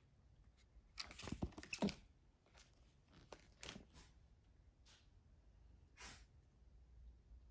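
A capuchin monkey handling a hardcover book: soft rustles and taps of paper pages and the cover. The loudest cluster comes about a second in, followed by a few single short ones.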